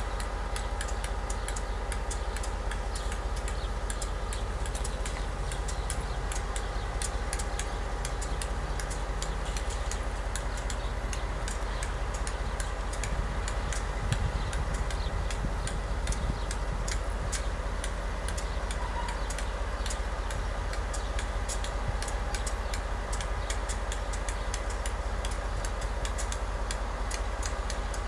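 Diesel locomotive and ballast-cleaning work train crawling along: a steady low engine rumble with an even run of sharp ticks over it.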